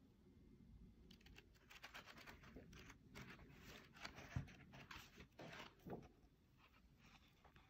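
Pages of a large hardcover photo book being flipped through by hand, a quick run of papery swishes and flaps from about a second in until near the end. One sharper flap comes about halfway.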